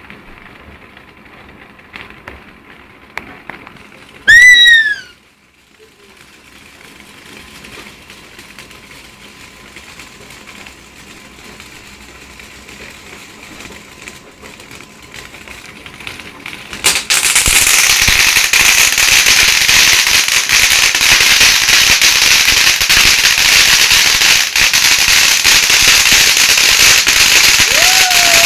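Fireworks: a brief, very loud falling whistle about four seconds in. Later a firework starts suddenly and hisses steadily with crackling through the rest.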